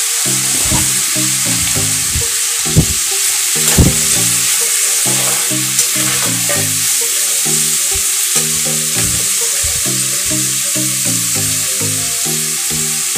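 Chopped onion, capsicum and tomato sizzling in hot oil in a kadai, with a steady hiss, while a steel ladle stirs them and knocks against the pan a few times, loudest about four seconds in.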